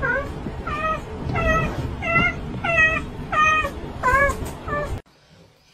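Grey tabby cat meowing in a steady run of about eight short meows, roughly one every half second or so, cutting off abruptly about five seconds in.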